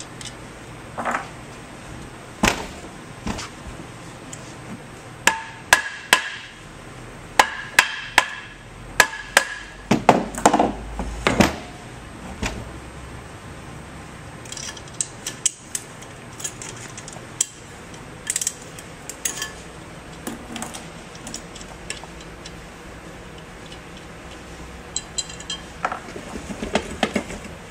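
Sharp metal knocks and clinks of hand tools, bolts and the cast mount ring being handled on a pump motor, some ringing briefly. They come thickest in the first half, as the mount ring is unbolted for a shaft seal replacement.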